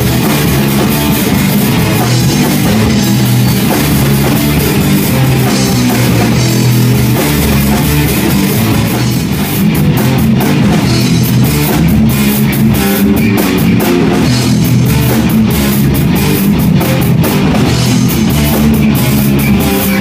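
Live punk rock band playing loud: electric guitars over a drum kit, with the drum and cymbal hits coming thicker from about halfway through.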